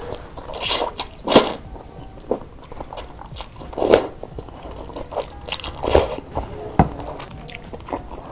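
Close-miked slurping of egg noodles in broth (bakmi godog) off a fork, with chewing between. There are several short slurps, the loudest about a second in and another about four seconds in.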